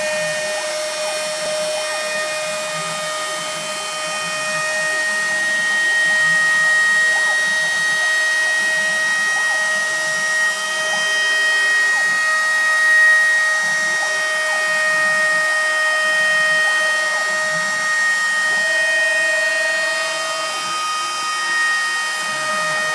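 CNC router spindle running steadily with a high whine as its bit cuts lettering into pink foam. The whine's lower tone shifts briefly for a couple of seconds toward the end.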